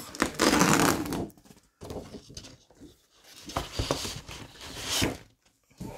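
Large sheets of design paper rustling and flapping as they are turned over and handled in a paper pad, in several bursts, the loudest in the first second.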